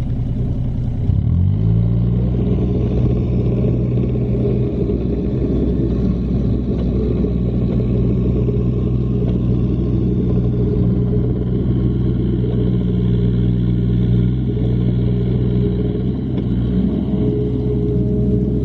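Caterpillar 302.7D mini excavator's diesel engine rising in revs about a second in, then running steadily at high revs, as when it pushes snow.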